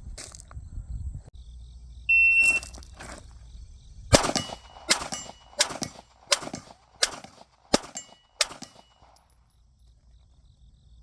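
A shot-timer beep, then a fast string of about seven pistol shots fired about 0.7 s apart, each followed by a faint ring of the steel target plate being hit.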